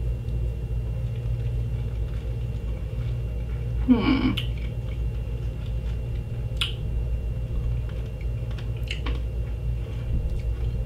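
A person chewing small candy pellets with the mouth closed, with a few faint sharp mouth clicks and a short hum of the voice about four seconds in, over a steady low electrical hum.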